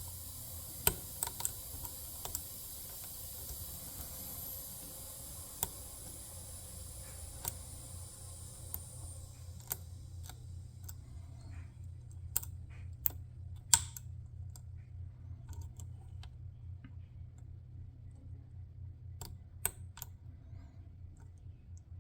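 Lock pick and tension wrench working in a Master Lock 410 lockout padlock: scattered, irregular light clicks and ticks as the pick sets pins and catches the warding, over a steady low hum. A high hiss stops about nine seconds in.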